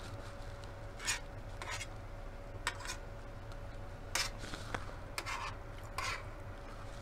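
Metal fork scraping and pushing fried rice across a metal baking tray, several short separate scrapes a second or so apart.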